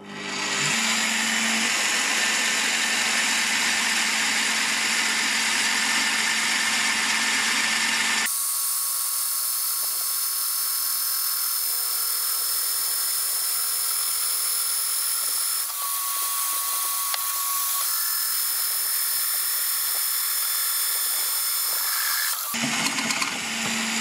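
Parkside PTBM 710 A1 bench drill press running at about 500 rpm, its bit drilling into a steel flat bar. About eight seconds in, the sound turns abruptly thinner and higher where the footage is played back four times faster, and it returns to the lower running sound near the end.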